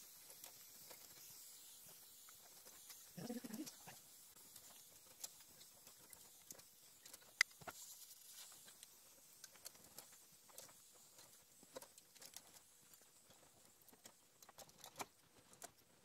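Faint scattered clicks and crinkles of thin aluminum evaporator-coil fins being bent and pulled away by hand to expose a copper tube, over a low hiss. One sharper click comes about seven seconds in.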